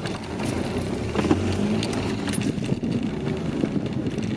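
Small Perodua hatchback's engine running steadily as the car manoeuvres at low speed on grass.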